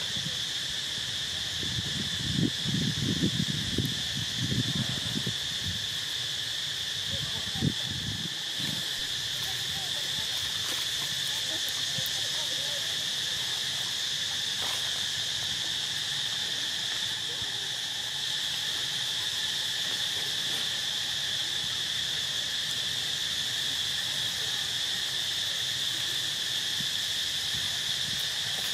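Steady, unbroken high-pitched drone of an insect chorus in forest. A few low bumps and rustles come through in the first several seconds, the sharpest about eight seconds in.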